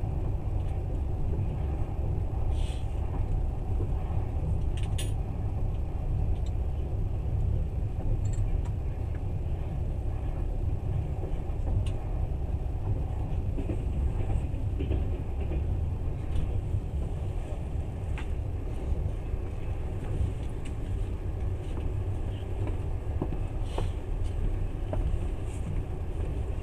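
Passenger train running at speed, heard from inside the carriage: a steady low rumble of wheels on rails, with a few brief high clicks over it.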